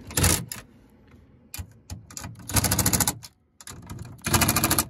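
Cordless impact driver hammering the side mirror's mounting nuts tight through a socket on an extension, set to its lowest setting so as not to crack the plastic bracket. It comes in three bursts of rapid rattling: a brief one at the start, about a second's worth in the middle and another short one near the end.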